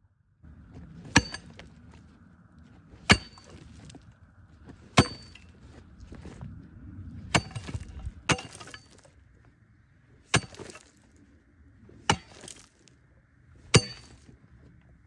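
A steel digging tool striking loose shale, eight sharp blows about two seconds apart, each with a short metallic ring and the clink of rock chips breaking loose, with scraping and rustling of rubble between blows.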